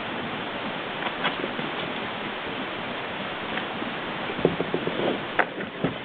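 Brown bear foraging on the forest floor: a cluster of short crackles and knocks near the end, over a steady hiss.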